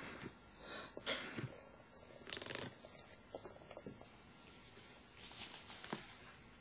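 Ambu Mark IV resuscitator bag and its plastic reservoir bag being squeezed and handled: several short rustling, rushing bursts with small clicks, the longest near the end.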